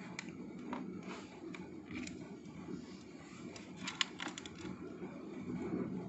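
A young rose-ringed parakeet's beak tapping and clicking against a small hand mirror: scattered light clicks, then a quick run of sharper clicks about four seconds in, over a low steady hum.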